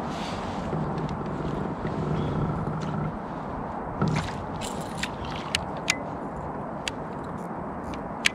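Steady low background rumble, with several sharp, separate clicks in the second half from a fishing rod and reel being handled and reeled in.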